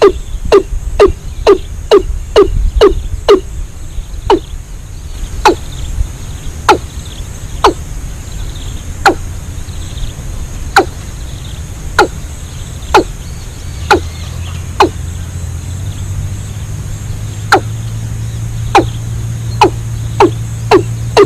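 A series of sharp knocks: about two a second at first, slowing to one every second or two, then quickening again near the end, over a low steady hum.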